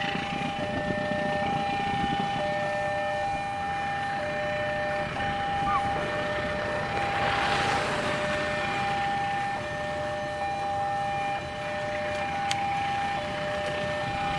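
Railway level-crossing warning alarm sounding a steady electronic two-tone with short breaks, warning that a train is approaching. A rushing noise swells and fades about halfway through.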